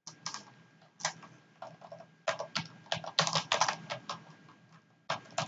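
Computer keyboard typing: irregular groups of keystrokes with short pauses between them, and a quick run of keys in the middle.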